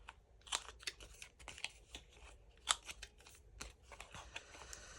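The corners of a paper card being cut round: a series of short, sharp snips and clicks, irregularly spaced, with soft paper handling between them.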